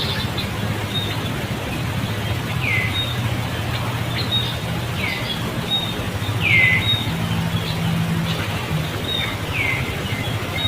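An animal's short high call that drops sharply in pitch, repeated four times at intervals of about two to three seconds, over steady outdoor background noise.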